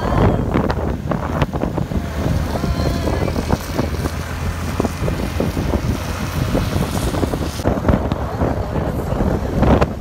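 Muddy stream water rushing steadily, with wind buffeting the microphone.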